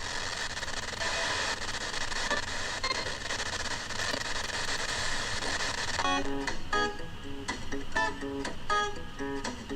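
Music from a radio: a steady hiss for the first several seconds, then plucked guitar notes picking out a melody from about six seconds in.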